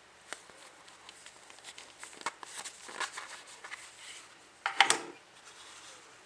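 Gloved hands handling a Zippo lighter and its packaging: light rustling and scattered small clicks, with a louder cluster of sharp clicks and rattling about five seconds in.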